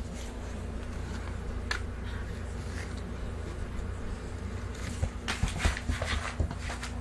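Steady low hum in a small room. A single click comes about two seconds in, and a cluster of soft taps and rustles about five seconds in as a crawling baby's hands pat the wooden floor.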